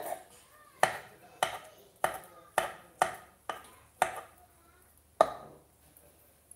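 Pink knife chopping food on a wooden cutting board, about eight separate sharp strikes roughly half a second apart, stopping about five seconds in.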